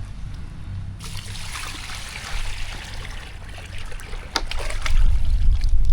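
Water pouring and splashing, with a low rumble of wind on the microphone swelling near the end.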